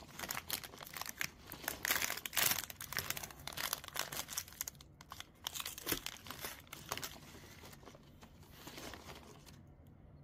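Plastic ice-cream bar wrapper crinkling and tearing as it is pulled open by hand, a dense run of crackles that thins out about seven seconds in.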